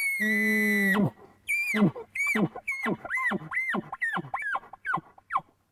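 Elk bugle blown on a Black Magic diaphragm call through a Bully Bull Extreme grunt tube: the high bugle note breaks down into a low grunt, then a run of about nine chuckles, each a quick falling note, coming a little faster toward the end.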